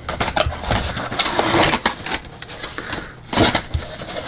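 Packaging in a laptop box being handled: a run of rustles, crinkles and light clicks, with one louder rustle about three and a half seconds in.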